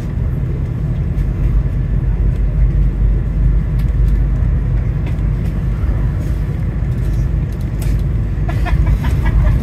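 Steady low rumble inside a Volvo B5LH hybrid double-decker bus, from its engine and running gear. Faint voices come in near the end.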